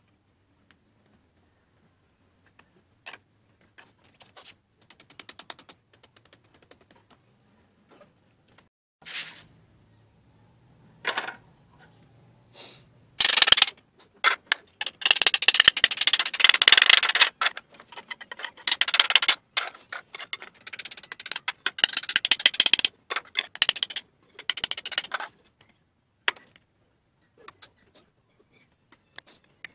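Claw hammer driving nails into a wooden board: a few light taps at first, then from about halfway through a long run of rapid, sharp blows that stops a few seconds before the end.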